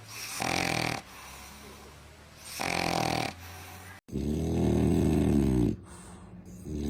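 A dog snoring: two short, raspy snores about two seconds apart, then a deeper, louder snore about a second and a half long. Another deep snore starts near the end.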